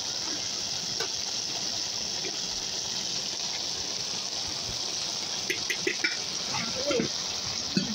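Leafy greens and vegetables sizzling and simmering in a wok, a steady hiss. There are a few quick clicks of the spatula against the pan about five and a half to six seconds in.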